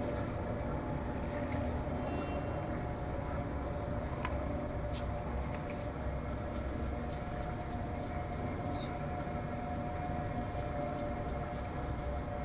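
Steady low mechanical hum with a constant mid-pitched tone running through it, and a few faint clicks.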